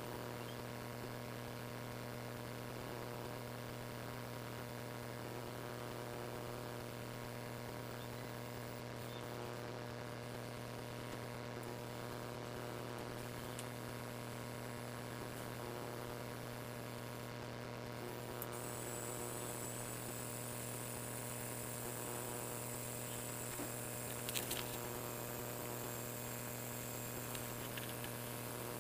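Steady electric hum, with a faint high whine that shifts about two-thirds of the way through and a few light clicks near the end.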